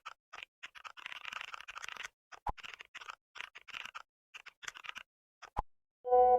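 Keyboard typing sound effect: runs of rapid key clicks broken by short pauses, with two sharper single clicks, one about halfway through and one near the end.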